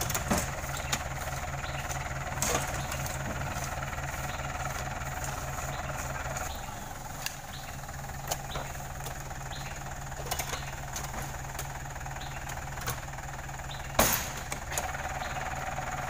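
An engine idling steadily with an even low throb, over scattered thuds and knocks of heavy oil palm fruit bunches being thrown up into a truck bed and landing on the load; the loudest thud comes about fourteen seconds in.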